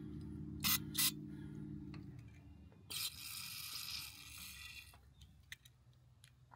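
Small metal parts being handled during work on a log splitter engine's carburetor: two sharp clicks, then a hiss lasting about a second and a half, then a few faint ticks. Background music fades out over the first two seconds.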